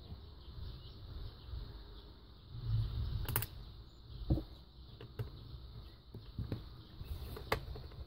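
Plastic-and-metal handling sounds of a 2.5-inch laptop hard drive being pushed and seated into a laptop's drive bay: scattered light clicks and taps over low rubbing and shuffling.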